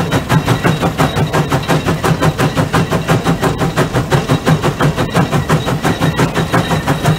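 The 150 Case steam traction engine working, its exhaust chuffing out of the stack in an even, rapid beat of about five chuffs a second. The engine is running under load as it pulls a plow.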